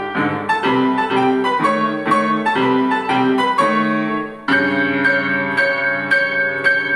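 Estonia grand piano played four hands: a melody in even notes about two a second over a lower part. About four and a half seconds in there is a brief break, and the music comes back fuller and brighter, with repeated high notes.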